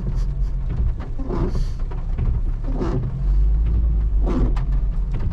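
Car engine and cabin rumble as the car reverses, with a short sound repeating about every second and a half.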